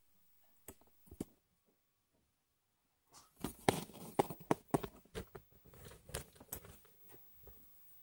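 A run of irregular clicks and knocks from things being handled and moved: two faint clicks about a second in, then a busier clatter from about three seconds to about seven.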